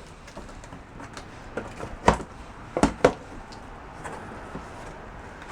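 A cardboard box being opened by hand: a few scattered sharp clicks and knocks, the loudest about two and three seconds in.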